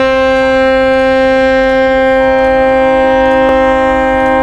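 A ship's horn holding one long, steady blast, with a second, fainter horn tone joining about two seconds in.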